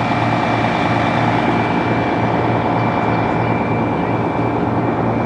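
Fire apparatus diesel engine running close to the microphone, loud and steady, with a thin steady high whine over a pulsing low rumble.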